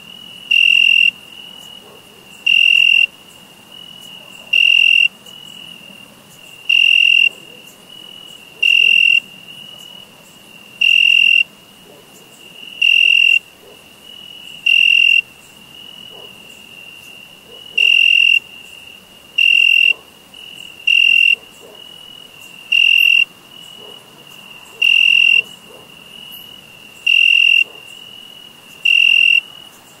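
Crickets chirping: loud half-second chirps about every two seconds, over a fainter steady trill at the same high pitch.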